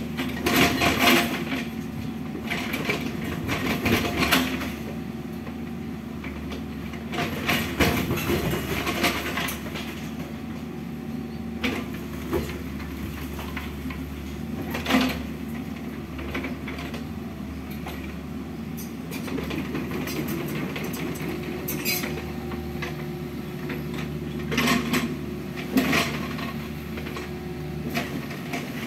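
Mini excavator's diesel engine running steadily, with repeated sudden knocks, clanks and crashes of rubble and sheet-metal roofing as it demolishes a wall.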